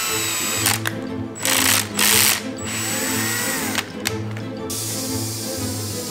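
Cordless drill boring holes through a clear acrylic plate, run in several short bursts, its motor whine rising and falling as the trigger is squeezed and let go. Background music plays underneath.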